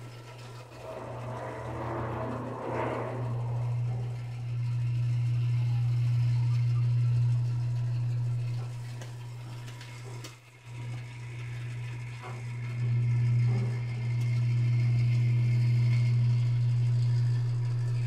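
Rotisserie motor of a 1964 Caloric Ultramatic oven turning the spit rod, giving a steady low hum that dips briefly about ten seconds in.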